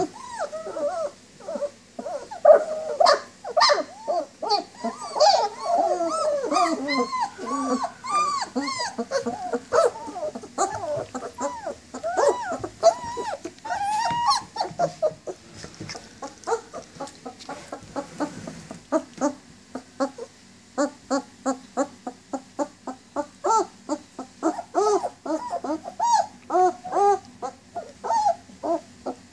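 Several 19-day-old German Shepherd puppies whining and whimpering for their mother. Short, high, arching cries overlap thickly at first, then settle about two-thirds of the way in into a steady run of short cries, about two a second.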